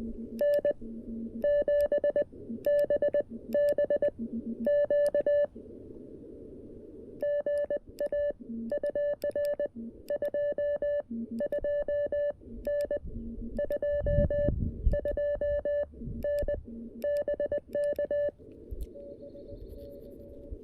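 Morse code (CW) from a CFT-1 QRP transceiver: one steady tone keyed on and off in dots and dashes, sent as groups of characters with short pauses between. A fainter, lower-pitched tone is keyed in some of the gaps.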